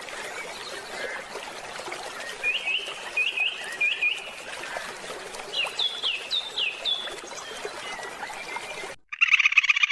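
Small bird chirping in two quick runs of short, high chirps over a steady background hiss. About nine seconds in, it cuts to a louder, fast buzzing trill.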